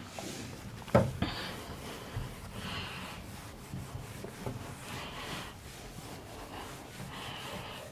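Whiteboard being wiped with a cloth: a series of rubbing swishes, one every couple of seconds, with a single sharp knock about a second in.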